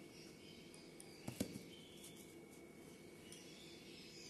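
Near silence with faint room tone, broken about a second and a half in by a couple of soft thuds as a banana is set down on a banana leaf.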